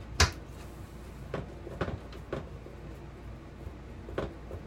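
A sharp knock about a quarter second in, followed by a scattering of lighter knocks and clunks, as things are moved or handled inside the travel trailer's interior.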